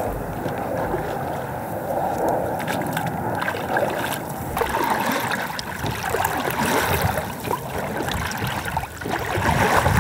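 Water splashing and sloshing against a half-deflated inflatable PVC boat riding low and swamping, with paddle strokes in the water.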